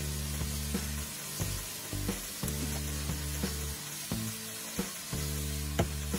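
Vegetables and bacon sizzling in a frying pan: a steady frying hiss with a few small clicks, under background music of held low notes.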